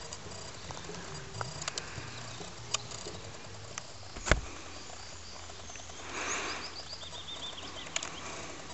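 Outdoor ambience with a bird chirping a quick run of short high notes about two-thirds of the way in, over scattered clicks and one sharper knock a little before halfway.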